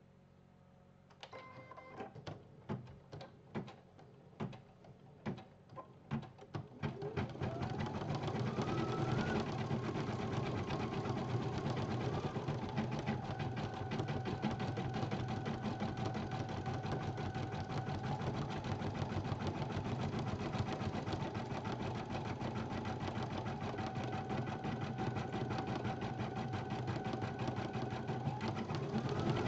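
BP1530L embroidery machine stitching a design. After about a second it starts with slow, separate needle strokes, two or three a second. About seven seconds in it speeds up with a rising whine into steady, fast stitching.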